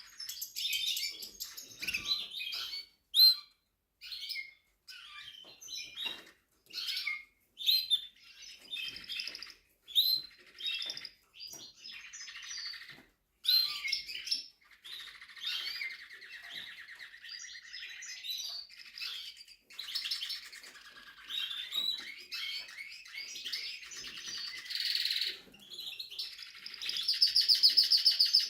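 Spanish Timbrado canary singing: a string of varied chirped phrases and long rolling trills with short pauses between, ending in a loud, fast trill.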